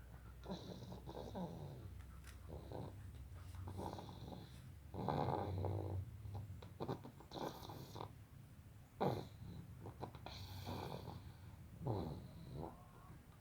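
Snoring in sleep: a run of uneven snores and breaths, some louder and rougher than others.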